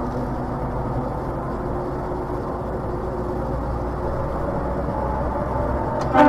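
A vehicle engine running steadily with a low rumble. Near the end a louder, pitched sound cuts in.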